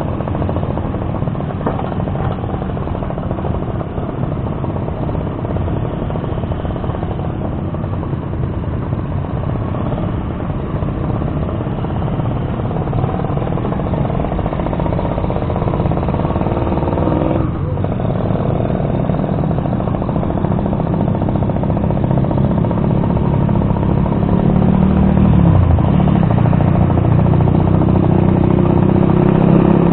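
Suzuki RC100's single-cylinder two-stroke engine running as the bike rides slowly in traffic among other motorcycles. It grows louder in the last few seconds as the bike speeds up.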